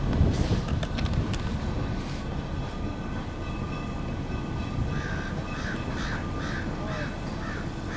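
1909 Niles electric line car rolling along street track: a steady low rumble of wheels and traction motors, with a few sharp clicks in the first two seconds. About five seconds in, a crow caws about seven times, roughly half a second apart.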